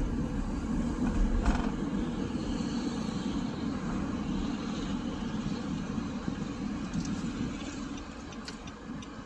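Steady road and engine noise inside the cabin of a moving car, with a brief louder bump about a second and a half in and a few light clicks near the end.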